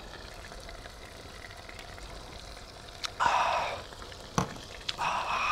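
Pieces of scorpionfish carcass frying in olive oil in a pan over high heat: a steady low sizzle, with two louder, rougher bursts about three and five seconds in.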